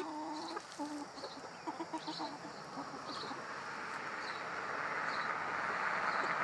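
Hens clucking in short, low calls while they forage through compost. From about halfway a rushing noise swells, louder toward the end.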